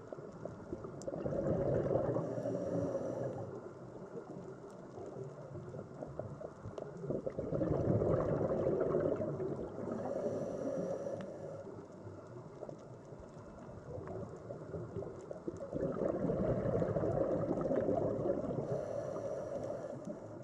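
Sea water rising and falling in slow swells about every seven to eight seconds.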